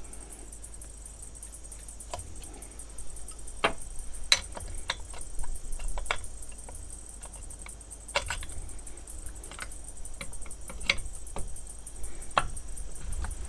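Irregular sharp clicks and knocks of a hand tool and metal and plastic parts being handled while a STIHL 028 chainsaw is taken apart, about ten of them, the loudest about four seconds in.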